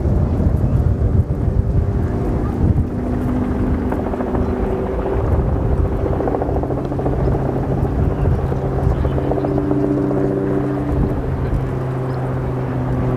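Avro Vulcan XH558's four Olympus turbojets running as the bomber comes in on approach to land with its gear down: a steady, loud drone with a low rumble and several held tones.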